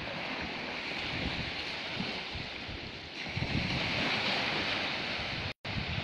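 Sea washing along a rocky shore, its hiss swelling about halfway through, with wind gusting on the microphone. The sound cuts out for an instant near the end.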